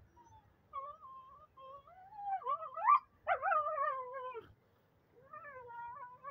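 Puppies whining and squealing while play-fighting: a run of high, bending cries, the loudest rising sharply to a peak about three seconds in and then falling away, with a quieter cry near the end.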